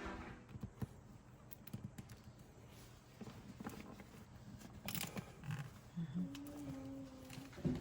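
Faint, scattered light taps and clicks of hands handling tiles and tools, with a brief low hum between about six and seven and a half seconds in.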